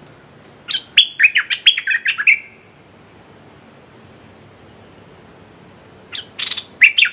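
A songbird, the นกดอกแตง kept as a caged decoy for trapping, sings two loud phrases of quick, chirpy notes. The first comes about a second in and lasts under two seconds; the second, shorter one comes near the end.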